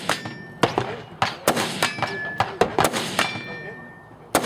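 A rapid string of gunshots with steel targets clanging and ringing after the hits, roughly two to three shots a second, several leaving a lingering metallic ring.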